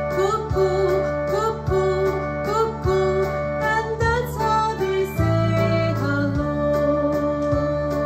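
Children's song with a singing voice over acoustic guitar and a steady beat, the voice repeating 'cuckoo' about twice a second, then changing to a new phrase, 'and that's how they say hello', a little after five seconds in.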